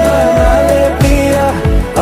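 Background music: a song with a sung melody over a steady bass beat.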